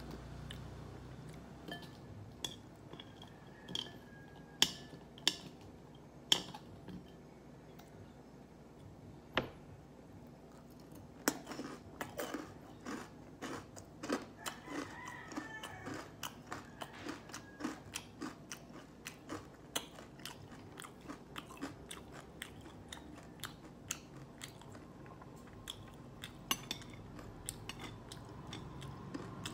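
Close-up crunchy chewing of yangnyeom fried chicken, with a few sharp clicks of steel chopsticks against the plate in the first ten seconds. From about eleven seconds in, the chewing becomes a rapid run of crunches.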